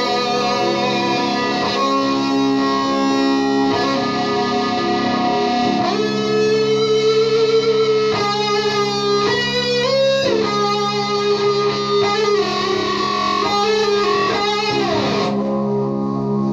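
Electric guitar through an Orange amplifier, playing psychedelic lead notes with wavering vibrato and bends over a steady looped drone. Near the end a note slides down and the brighter layer drops out, leaving the drone.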